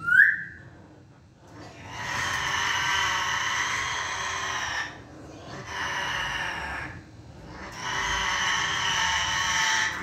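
An African grey parrot gives a short rising whistle, then three long drawn-out calls a few seconds each, separated by short pauses.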